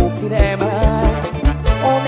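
Live band music: a male singer sings a wavering melody into a microphone over a deep bass line and a steady kick-drum beat.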